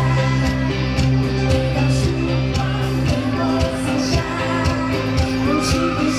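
Live pop-rock band music over a PA system, with a steady drum beat, guitar and sustained chords, and a voice singing, most clearly near the end.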